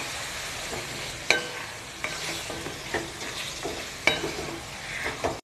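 Marinated chicken sizzling in oil and spice paste in a metal kadai while being stirred and fried down, with a slotted spatula knocking and scraping against the pan about once a second over a steady frying hiss.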